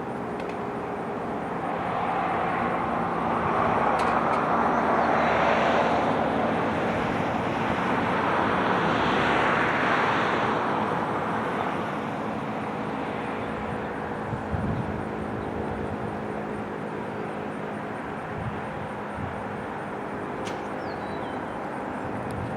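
Vehicle noise outdoors: a broad rushing sound that swells twice and fades, over a steady low engine hum.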